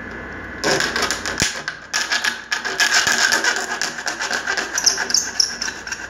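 Rapid rasping strokes of a hand tool cutting a notch into white PVC cable trunking, starting about half a second in.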